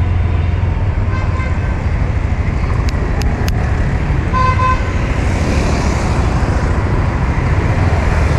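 Honda Vision scooter riding in city traffic: a steady low rumble of engine and road, with two short horn beeps, a faint one about a second in and a louder one about four and a half seconds in.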